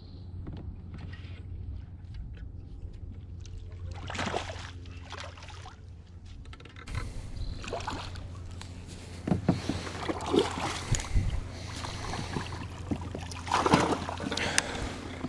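Pedal kayak on the water: a steady low hum under scattered knocks, rattles and small splashes, the loudest knocks coming about ten and fourteen seconds in.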